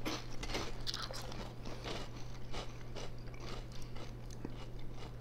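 Chewing of Funyuns onion rings dipped in cream cheese, with irregular crisp crunches as the snack breaks up. A steady low hum sits underneath.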